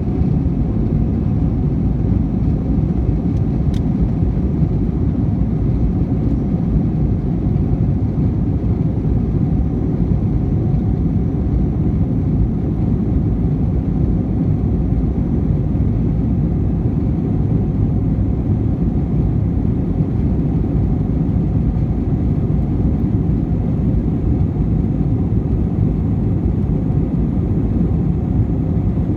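Steady low rumble of an Airbus A321-200's jet engines and rushing air, heard inside the passenger cabin during the climb after takeoff. A faint click sounds about four seconds in.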